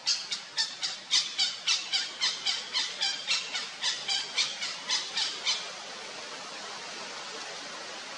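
Flameback woodpecker calling: a series of about twenty sharp, high notes at roughly four a second, which stops about five and a half seconds in.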